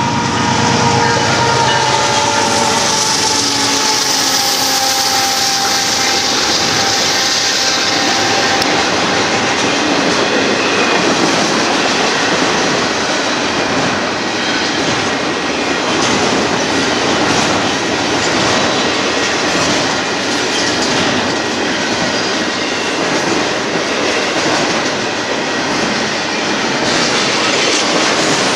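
Union Pacific intermodal freight train passing close by. Over the first several seconds a pitched drone slowly falls in pitch and fades, then a steady rumble and clatter of the cars' wheels over the rail continues.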